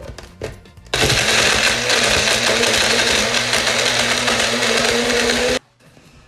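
Big Boss personal blender running steadily, blending a cappuccino mix. It starts about a second in and cuts off suddenly near the end.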